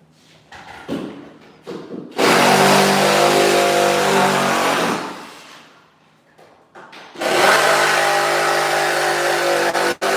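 An electric power tool runs twice for about three seconds each time. Its motor comes up to speed abruptly and winds down slowly after each run, with a few quick trigger blips near the end.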